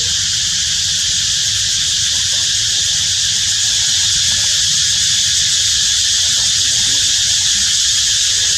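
Steady high-pitched drone of cicadas, unbroken and even, with a low rumble underneath.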